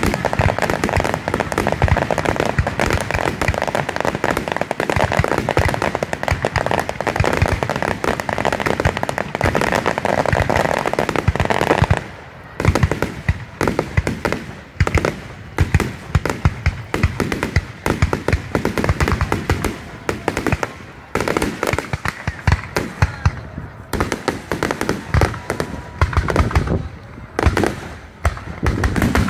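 Fireworks display: a dense rapid barrage of shells bursting and crackling for about the first twelve seconds, then thinning to separate bangs with short gaps between them.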